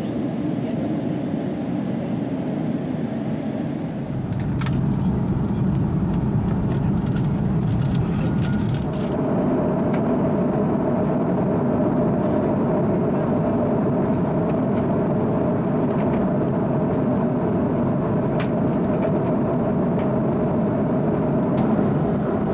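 Steady cabin noise of an Airbus A330-300 in flight, heard inside the cabin: a constant rush and rumble of the engines and airflow. The rumble grows about four seconds in, a few light clicks and rustles follow, and a steady hum joins about nine seconds in.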